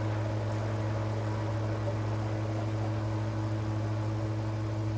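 Steady low electrical hum with an even hiss behind it: constant background noise of the recording setup, unchanging throughout.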